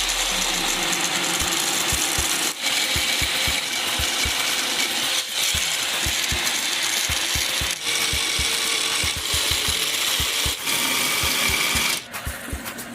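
Homemade mini lathe running while a tool cuts the spinning wooden pulley: a loud, rough scraping with irregular low knocks. It breaks off briefly every few seconds and stops sharply near the end.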